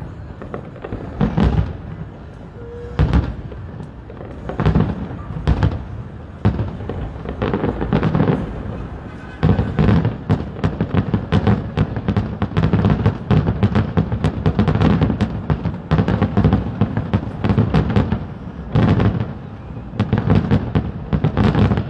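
Aerial fireworks shells bursting in a string of booms echoing back. The bangs come a second or more apart at first, then from about halfway in they come thick and fast in a near-continuous barrage.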